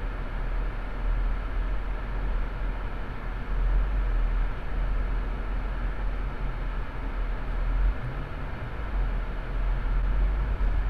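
Steady low road and engine rumble inside a moving car's cabin, picked up by a windshield-mounted dashcam.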